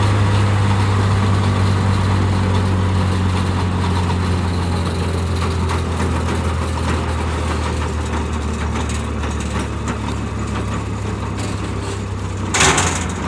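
A large engine running steadily at constant speed, with a deep hum under a dense mechanical noise. A brief rushing burst comes near the end.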